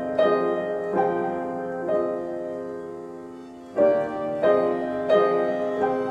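Piano music: sustained chords struck roughly once a second, each left to ring and fade, with a longer pause of about two seconds in the middle before the chords resume.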